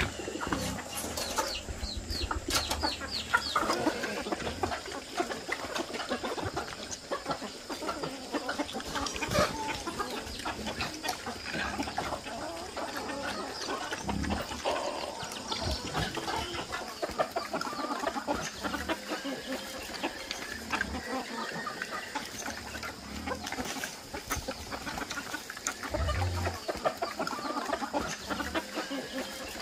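Chickens clucking, with scattered knocks.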